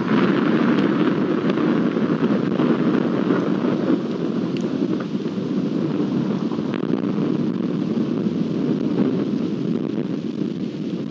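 Thunder rumbling long and deep right after a close strike, loud at first and slowly easing off.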